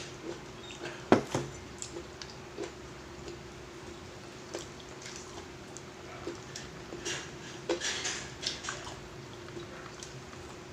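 Eating sounds: utensils clicking against plates and chewing, in scattered short clicks over a faint steady hum. The sharpest click comes about a second in, with a cluster of them near the end.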